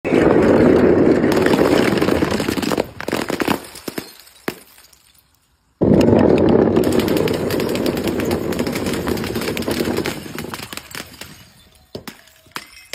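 Full glass beer bottles smashing one after another in a fast run of crashes and clinks, thinning to scattered tinkles of glass. After a brief silence, a row of paint-filled glass mason jars shatters in a second dense run of crashes that fades to scattered clinks.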